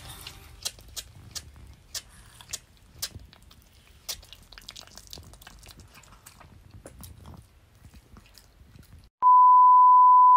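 Pomeranian chewing and gnawing on a dog chew: an irregular run of crunches and sharp clicks. About nine seconds in, a loud steady beep tone cuts in and holds.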